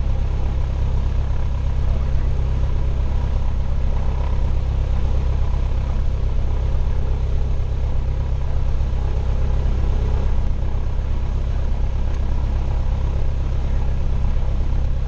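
Cessna 172's piston engine and propeller running steadily, heard from inside the cabin as a constant deep drone.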